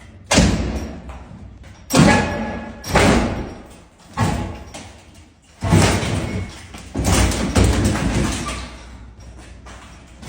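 A door being struck hard over and over: about eight heavy bangs, irregularly spaced roughly a second apart, each dying away before the next.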